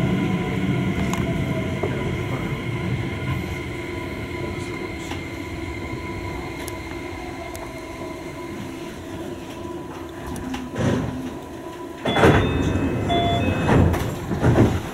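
Electric commuter train slowing to a stop at a station, heard from inside the car: the motor whine and running noise fade away over several seconds. Near the end come a few clunks and brief tones as the train stands at the platform, with door-opening noise.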